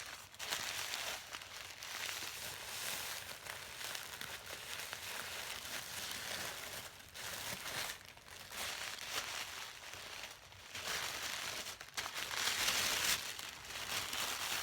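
Crinkly packaging being handled and opened by hand, a continuous crinkling and rustling with a few short pauses, loudest a little before the end.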